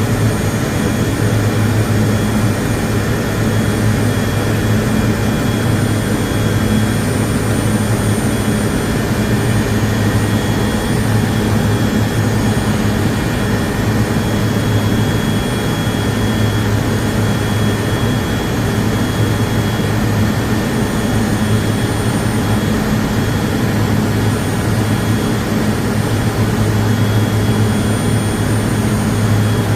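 Industrial air compressor running steadily: a loud, constant machine noise with an unchanging low hum.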